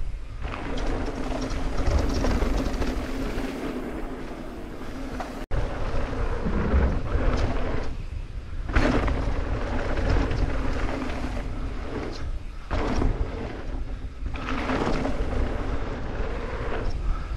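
Wind buffeting a GoPro microphone and knobby tyres rumbling on a packed dirt trail as a downhill mountain bike descends at speed, with a steady buzz under the noise. The sound breaks off for an instant about five seconds in at a cut.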